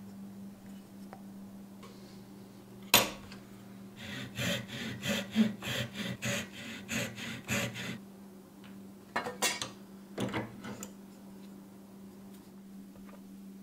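Small hand saw cutting a slot into a pine lure blank held in a bench vise: a run of quick, even back-and-forth strokes, about three a second, then a few more strokes after a short pause. A sharp knock comes just before the sawing starts.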